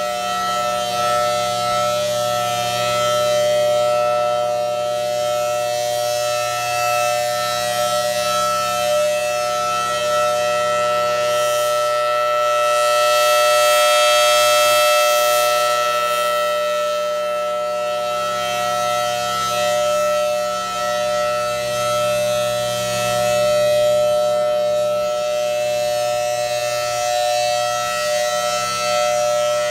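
Federal Signal Thunderbolt 1000T supercharged rotating warning siren sounding a loud, steady two-tone note at full pitch. Its volume swells and fades about every ten seconds as the turning horn sweeps past, and it is loudest about halfway through.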